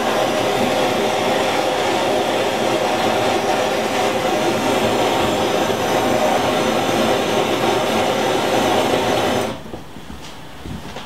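Plumber's torch burning with a steady hiss as its flame is held on wood chips to ignite them; the torch cuts off suddenly about nine and a half seconds in, leaving a much quieter background.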